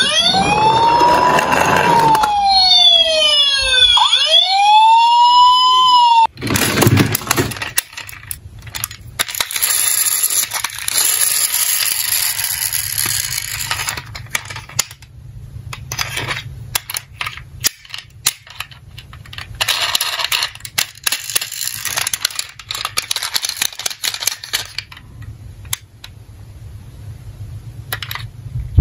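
An electronic police siren wails, its pitch rising and falling, and cuts off about six seconds in. After it come irregular clicks and rattles of toy cars being handled in a cardboard box.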